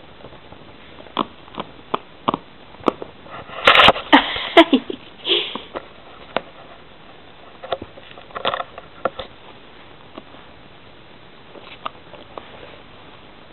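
A kitten playing on a wooden floor: scattered light taps and scuffles from its paws and claws. About four seconds in there is a loud cluster of breathy, sniff-like noises close by.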